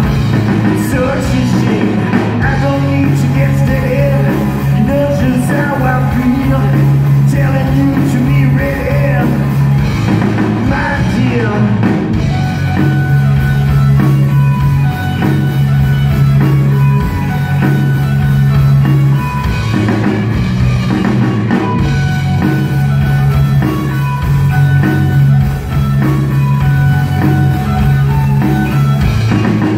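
Live rock band playing: distorted electric guitars, electric bass and a drum kit with a steady beat.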